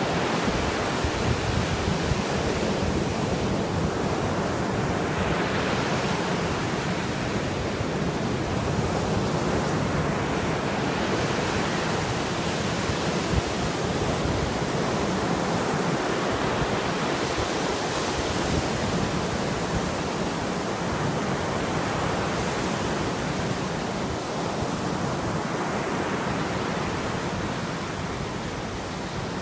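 Caspian Sea waves breaking on the shore, a steady wash of surf that swells every five or six seconds, with wind on the microphone.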